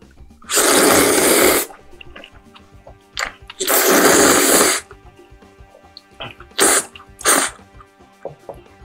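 Noodle slurping: two long, loud slurps of kalguksu noodles in broth drawn from a small bowl, then two shorter, sharper slurps near the end.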